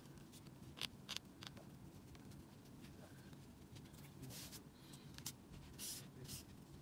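Faint, scattered short rustles and scratchy swishes, several of them spread through the stretch, from crocheted yarn and fabric being handled and pulled.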